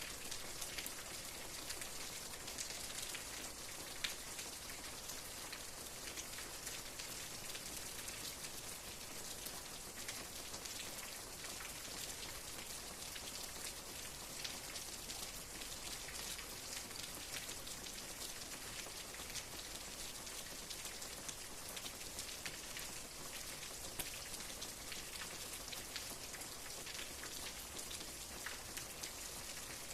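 Steady rain with many separate drops ticking on a surface, a few of them louder, as at about four seconds in.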